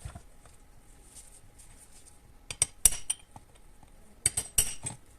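Light hammer taps on a flat screwdriver, sharp metallic clinks, bending back the crimped tabs that hold the heater blower motor's housing together. A few taps come a little past halfway, then another quick run of taps near the end.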